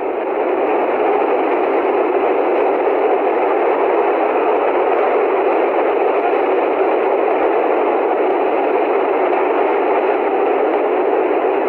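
Steady static-like hiss at a constant level, with no impacts or changes.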